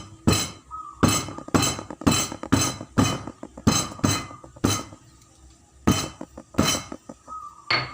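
Fresh ginger root being smashed flat with repeated blows: about fifteen sharp knocks, mostly two or three a second, with a pause of about a second just after the middle.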